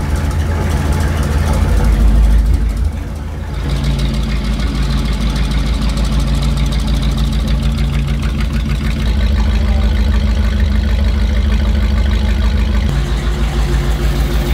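First-generation Chrysler Hemi V8 running on an engine dyno, steady apart from its speed shifting a few times. The engine itself is free of mechanical noises; the extra noise comes from the dyno's starter at the flywheel.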